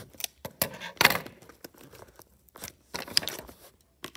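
Clear packing tape being ripped off a cardboard shipping box in several short tearing rasps, the loudest about a second in and another run near three seconds.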